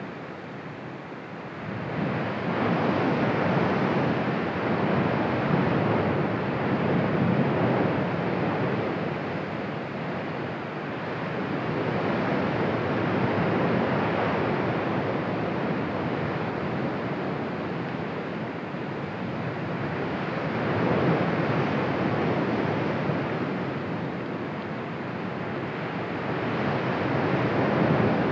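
Erupting Cumbre Vieja volcano giving off a continuous rushing noise like heavy surf. The noise swells about two seconds in, then rises and falls in slow waves.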